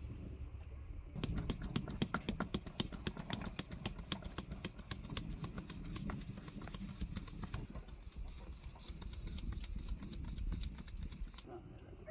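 Flour being sifted through a wooden-rimmed hand sieve. The sieve is shaken and knocked in a rapid, steady run of taps that starts about a second in and stops at about seven and a half seconds.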